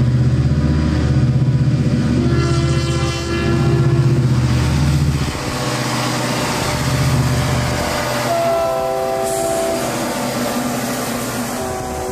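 Southern Pacific diesel freight locomotives running loudly past, with a train air horn sounding a short blast about two seconds in and longer blasts from about eight seconds on. The engine sound drops off after about five seconds as the hopper cars roll by.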